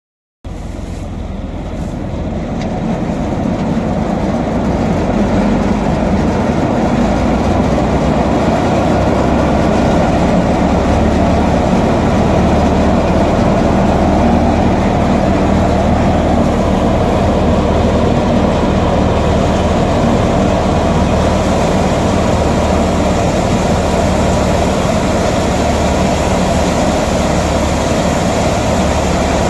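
A tractor-driven Diamond thresher running under load as bundles of taramira (rocket) stalks are forked into it. It makes a loud, steady mechanical drone of drum, blower and tractor engine, which grows louder over the first few seconds and then holds steady.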